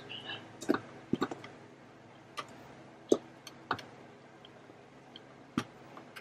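Metal beaters of an unpowered hand mixer knocking and scraping against a stainless steel mixing bowl as flour is stirred in by hand: scattered sharp clicks, the loudest about three seconds in. The mixer's motor is not running.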